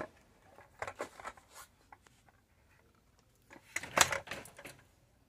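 Scattered rustling and small knocks of handling, a few about a second in and a louder cluster about four seconds in.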